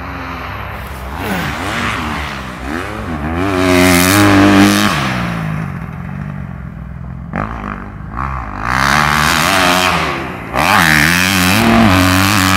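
Kawasaki motocross bike's engine revving up and down as the rider works the throttle around the track. It is loudest about four seconds in and again from about nine to twelve seconds as it passes close by.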